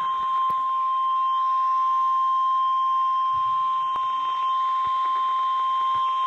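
NOAA Weather Radio 1050 Hz warning alarm tone: one loud, steady, unbroken beep. It signals that an emergency warning broadcast follows, here a tornado warning.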